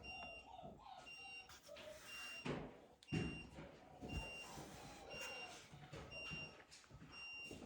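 Faint, short, high beeps repeating roughly once or twice a second, with a couple of soft thumps about two and a half and three seconds in.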